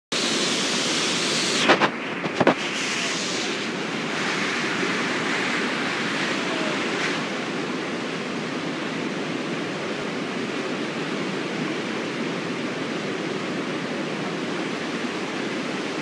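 A small waterfall pouring down a rock chute into a pool: a steady rush of water. Two or three sharp knocks, the loudest sounds, come about two seconds in.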